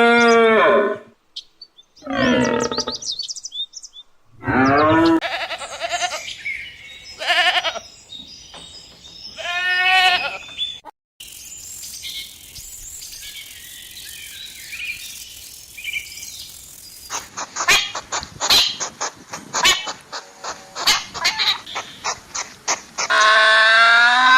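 A string of animal calls edited one after another: five short calls, each about a second long and a couple of seconds apart, then faint high chirping, then a fast run of sharp clicks, and another long call near the end.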